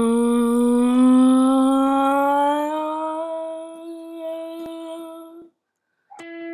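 A single long humming tone that slowly rises in pitch over the first few seconds, then holds and fades out. After a brief gap, electric guitar music starts near the end.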